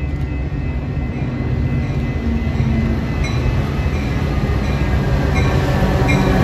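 An EMD F40PH-series diesel locomotive running and growing louder as it pulls a bilevel commuter train in close. Sharp clicks from the wheels start about three seconds in.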